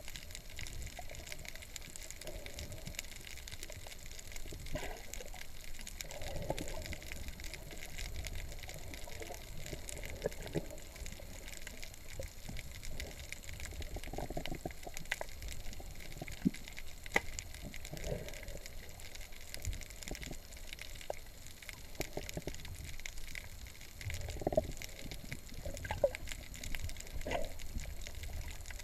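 Muffled underwater sound through a GoPro Hero3's waterproof housing: a steady low rumble of moving water with intermittent swishes and scattered faint clicks.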